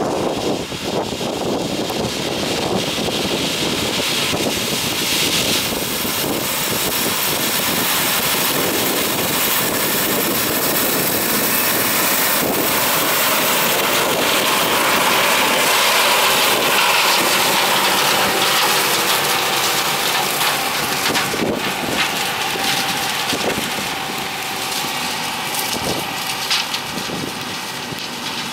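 Claas Lexion 750 combine harvesting corn: engine and threshing machinery running with a steady, dense noise that grows louder toward the middle and then eases off.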